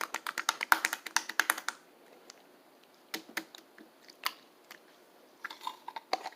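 Slime being squeezed and pressed by hand, giving a rapid run of sharp clicking pops at first, then a few scattered clicks and a short cluster of crackles near the end.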